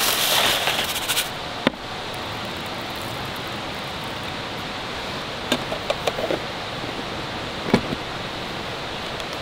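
Rice grains pouring from a bag into a metal mess tin for about a second, then a steady background hiss with a few light clicks and taps as the tin is handled and its lid is set on.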